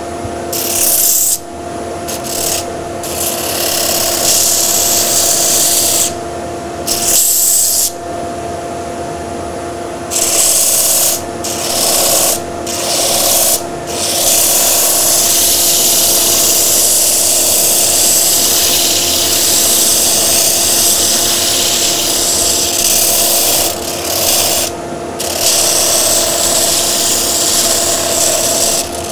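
Wooden fish blank pressed against a lathe-mounted sanding disc to round over its edges: a loud hissing rasp of abrasive on wood that keeps dropping out for moments as the piece is lifted off and repositioned. A steady machine hum runs underneath.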